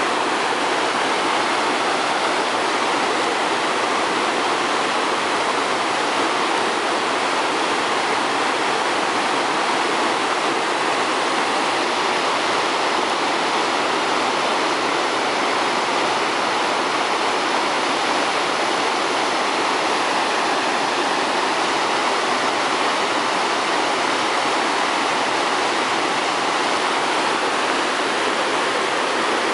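Muddy floodwater of a river in spate rushing across a submerged road and churning over its edge in standing waves: a steady, loud, unbroken rush of water.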